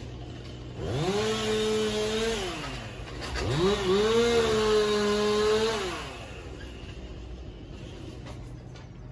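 Two-stroke chainsaw revved up twice, each time rising quickly in pitch, holding for a second or two, then dropping back, over a steady low hum.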